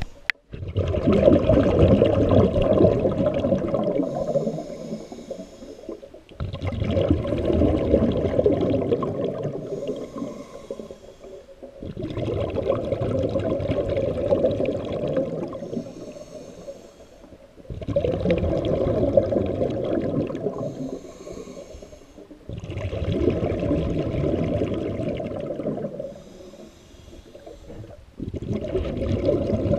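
Scuba diver breathing through a regulator underwater, heard from a head or hand-held camera: slow, regular breaths about every six seconds. Each breath is a long loud rush of exhaled bubbles, then a shorter, quieter hiss.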